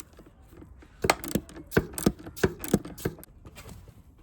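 A wrench working the 12 mm nuts that hold the brake master cylinder to the brake booster: a run of sharp metallic clicks, about a dozen over two seconds, starting about a second in.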